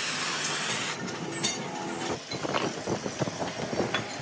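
A workshop machine running with a steady hum and hiss stops about a second in, followed by scattered metal clinks and knocks.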